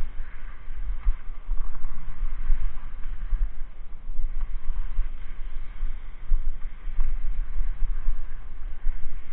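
Wind buffeting the action camera's microphone in an uneven, gusting rumble, over a steady hiss of skis sliding on packed snow as they are towed up a drag lift track.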